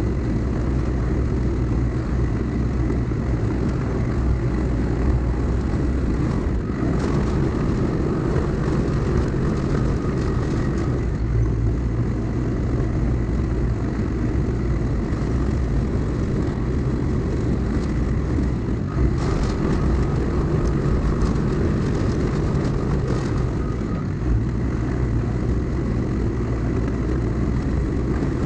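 The diesel engine of a CAT earthmoving machine running steadily under work: a loud, continuous low drone with a thin steady whine above it.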